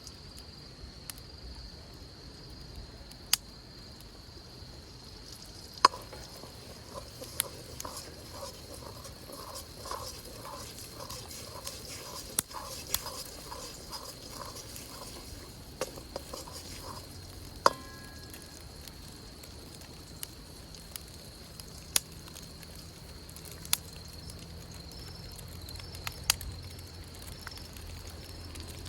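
Wood campfire crackling, with about a dozen sharp pops scattered through. A steady high drone runs underneath, and a rhythmic run of pulses, about two a second, comes in the middle.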